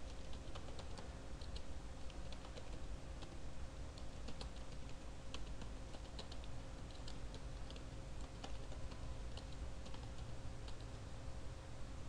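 Typing on a computer keyboard: irregular, quick key clicks, over a low steady hum.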